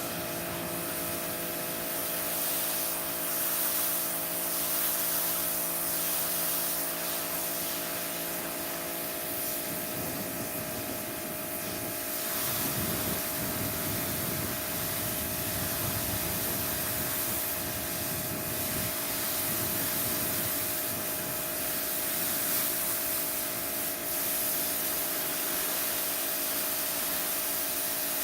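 Electric pressure washer running: a steady motor hum under the hiss of the water jet spraying onto concrete.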